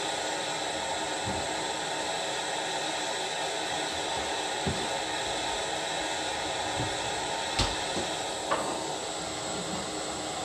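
Hand-held gas torch flame hissing steadily as it heats bismuth chips in a small metal dish, with a few sharp clicks and taps, the loudest a little past the middle.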